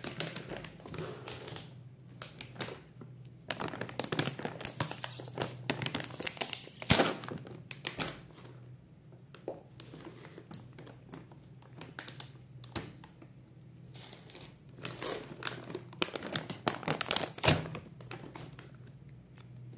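Plastic pouch of almonds crinkling and rustling in the hands as it is worked open, full of irregular sharp crackles, with louder spells a few seconds in and again near the end.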